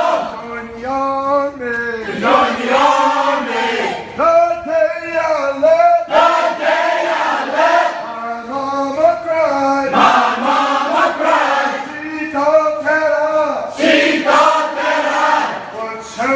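A group of men singing together in a chant-like chorus, in short phrases roughly two seconds apart.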